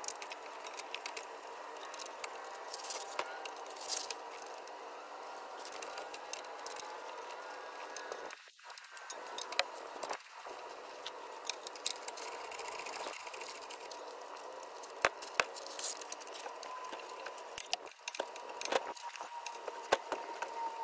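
Steel bolts being run in and tightened on a brake caliper mounting bracket with a socket wrench: scattered metallic clicks and clinks of the tool, a few louder ones in the second half, over a steady background hiss.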